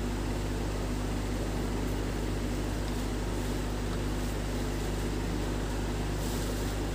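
Steady room tone: a low, even machine hum with a hiss underneath, and no distinct handling sounds.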